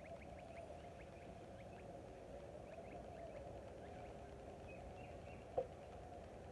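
Faint outdoor ambience with small birds chirping in quick, repeated short calls, and one sharp knock about five and a half seconds in.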